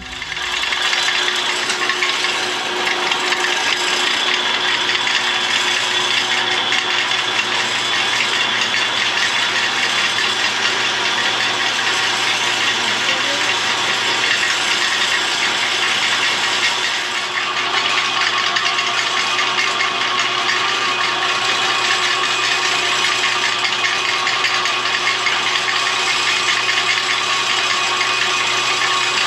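Old J.I. Case hay bale elevator running with a steady mechanical rattle, dipping briefly about seventeen seconds in.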